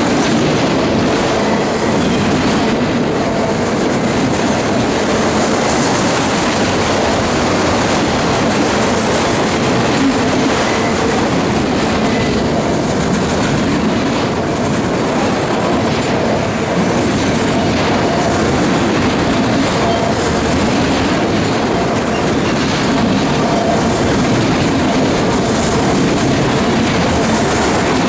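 Freight train of autorack cars rolling past at close range, a steady loud rumble with wheels clattering over the rail joints.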